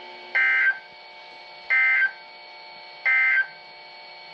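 Emergency Alert System end-of-message signal: three short bursts of buzzing two-tone SAME data, about a second and a half apart, marking the end of the tornado warning broadcast. A faint steady broadcast hum runs underneath.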